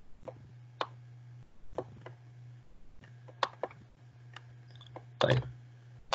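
Computer mouse clicks and keyboard taps, scattered and irregular, with a low steady hum underneath and one louder knock about five seconds in.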